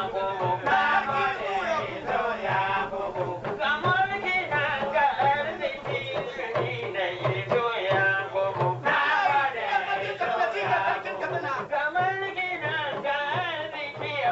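A man singing in Hausa over a steady beat of kalangu talking drums.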